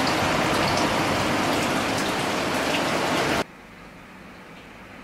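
Steady rushing of water that cuts off abruptly about three and a half seconds in, leaving only a faint steady hiss.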